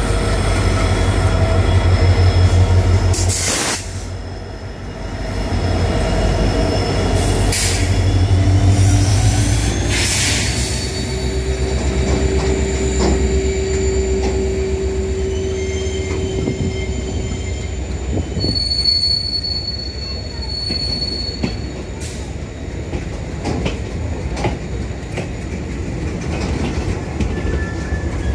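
Indian Railways diesel locomotives passing close by with a heavy low engine rumble for about the first ten seconds, then a long string of loaded freight wagons rolling past with wheel clatter and squealing wheels, including a high steady squeal a little past the middle.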